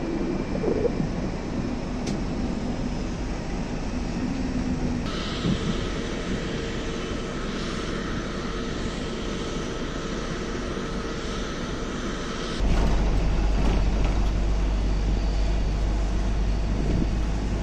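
Steady hum and whine of running jet aircraft on the apron, changing abruptly about five seconds in. About thirteen seconds in it gives way to a louder, deep steady rumble of a vehicle driving.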